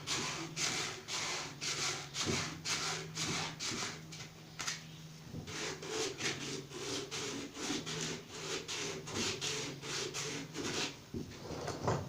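Hand-sanding of the commutator on a 6-volt generator armature: rapid back-and-forth rubbing strokes, about three a second, to clean the copper back to bright metal for a better brush connection. The sanding pauses briefly about four to five seconds in, then carries on.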